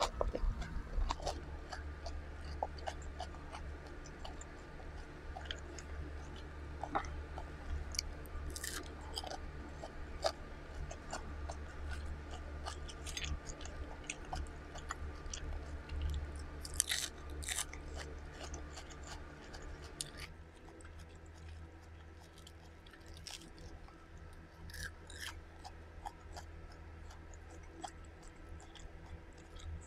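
Close-miked chewing and biting of food, with scattered short, sharp crunches and clicks over a steady low hum. The hum drops in level about twenty seconds in.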